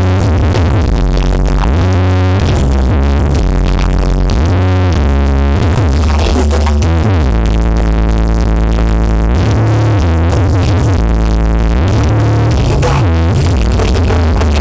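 Loud electronic dance music with a heavy bass line that shifts pitch every second or so, played through the Blizzard Audio 'sound horeg' carnival sound system.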